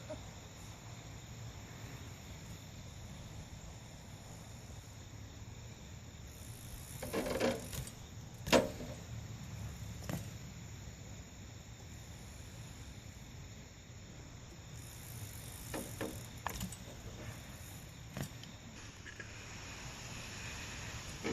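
BMX bikes being ridden, with a handful of short metallic clatters and knocks over a steady background hum. The loudest knock comes about eight and a half seconds in.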